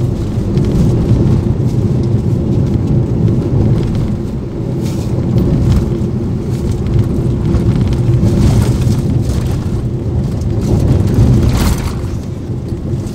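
Car driving on the road, heard inside the cabin: a steady low engine and tyre rumble, with a few brief louder rushes along the way.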